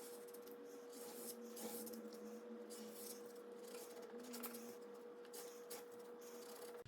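Faint, irregular scratching and rubbing strokes over a steady faint hum.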